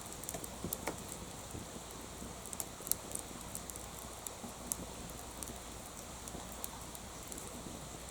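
Wood bonfire burning, with irregular sharp crackles and pops over a steady hiss. The loudest pop comes about three seconds in.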